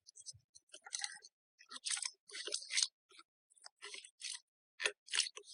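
Slime being squeezed and poked by hand, giving an irregular run of short crackly clicks and pops with brief pauses between them.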